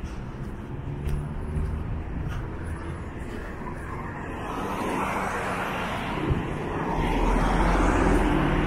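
Street traffic: cars driving along the road, the noise of engines and tyres swelling over the second half as a car comes closer, with a low rumble in the last couple of seconds.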